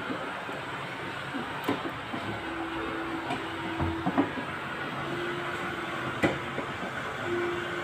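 Panasonic washing machine running through its cycle: a steady mechanical noise with a hum that comes and goes three times, and scattered knocks and clicks.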